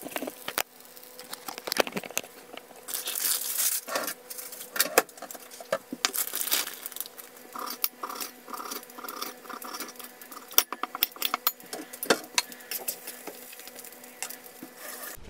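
Kitchen prep sounds: clinks and knocks of a pan and utensils, and a small knife slicing a tomato on a ceramic plate with a quick run of cutting strokes, over a faint steady hum.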